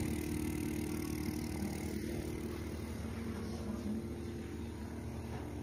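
SL11C vacuum cup therapy machine's suction pump running with a steady low hum.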